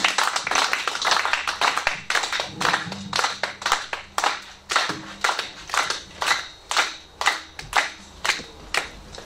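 Audience applauding. It starts as a dense patter of many hands, then settles into a steady rhythm of about two claps a second.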